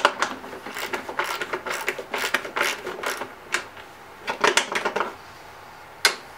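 Hand ratchet clicking in short strokes, with metal scrapes, as the stubborn bolts holding the recoil starter and top cover on a Honda GCV160 mower engine are worked loose. A single sharper click comes near the end.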